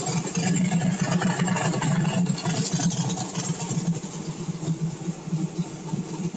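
Small-block V8 on E85 with a CSU blow-through carburettor idling steadily with an even low pulse, still warming up after a cold start with no choke.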